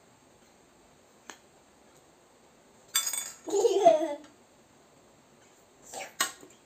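A young boy laughs in a short breathy burst about three seconds in, lasting about a second. There is a faint click about a second in and two sharp clicks near the end.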